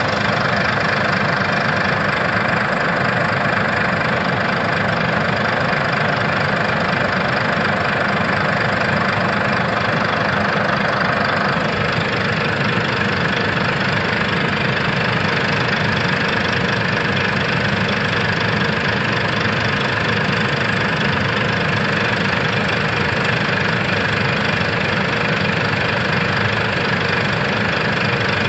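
Backhoe loader's diesel engine running steadily, with a slight change in its tone about halfway through.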